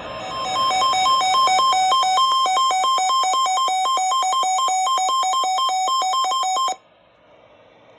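Electronic alert beeping that alternates rapidly between two pitches, about four beeps a second, sounding the alarm for a tornado warning on weather radio. It cuts off abruptly near the end, leaving faint radio static.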